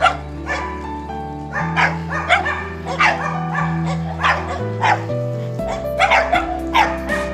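Background music with a steady beat over held low chords.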